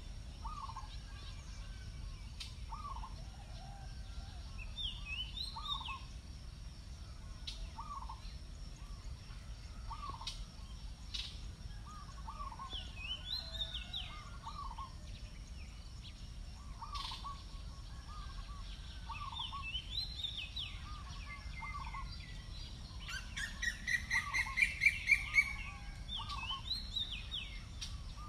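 Birds calling. One repeats a short note about once a second, another gives a quick, higher warbling phrase every few seconds, and from about 23 to 26 s a nearer bird gives a loud run of about six rapid, rising notes. Faint clicks and a low rumble sit underneath.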